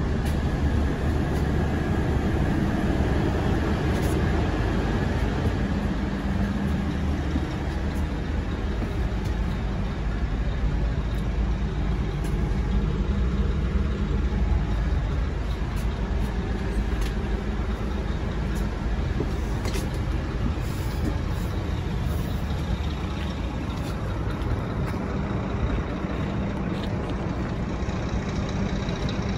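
Scania coach's diesel engine idling steadily, a constant low rumble.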